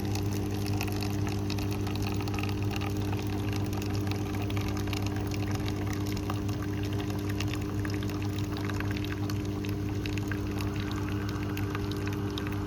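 de Jong Duke Lua ConnectMe coffee machine dispensing coffee, its pump humming steadily while the coffee pours into the cup.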